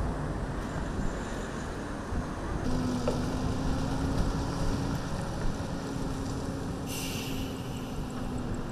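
Low outdoor rumble with wind on the microphone. From about three seconds in, a heavy truck's diesel engine runs with a steady low hum, and a hiss joins near the end.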